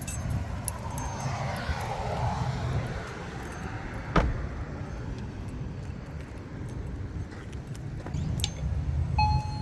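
Steady low car and traffic rumble, with a passing whoosh in the first few seconds and a sharp click about four seconds in. Near the end an electronic entry-door chime starts to sound.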